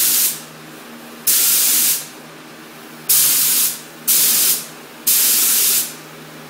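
Air-fed paint spray gun spraying epoxy primer in short trigger pulls: a burst of hiss tails off at the start, then four more bursts follow, each under a second long.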